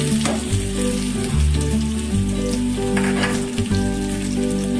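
Chopped onions dropped into hot oil in an aluminium kadai, sizzling as they fry, with background music playing over it.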